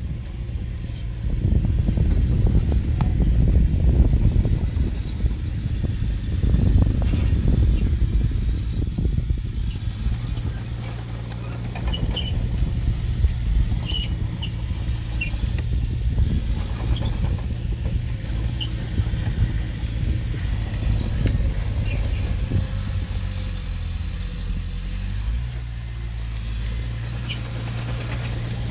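Diesel engine of heavy earthmoving equipment running continuously, rougher and louder for the first ten seconds and then settling to a steady hum, with scattered short high squeaks.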